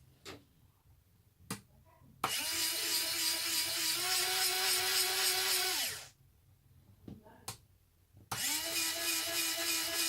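Small electric ramp motor in a Bruder Mercedes-Benz Sprinter toy van converted to RC, running with a steady whine for about four seconds, then winding down as its end switch cuts the power. After a few sharp clicks it starts again near the end.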